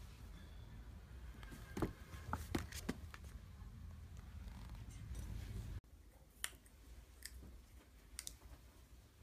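A few sharp crinkles and clicks over low handling noise as a baby macaque paws at a paper gift bag. Then, after the background drops away, a few isolated sharp clicks of a macaque cracking sunflower seeds in its teeth.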